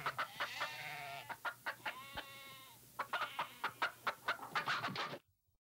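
Animal calls: two drawn-out pitched calls, then a quick run of short, sharp calls that stops abruptly.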